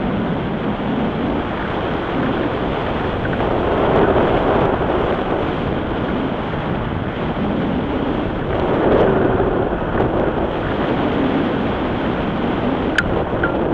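Airflow rushing over the microphone of a camera mounted on a hang glider in flight: a loud, steady wind roar that swells twice. There is one sharp click near the end.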